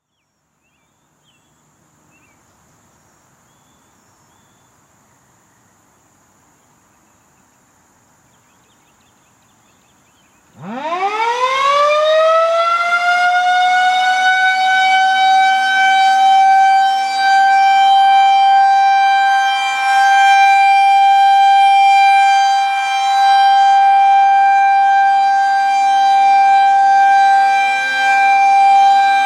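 Federal Signal 2001-130 rotating electromechanical outdoor warning siren starting up after about ten seconds of faint background. It winds up fast from a low growl to a steady high tone, the Alert signal. The tone holds its pitch while its loudness swells and dips as the rotating head sweeps past.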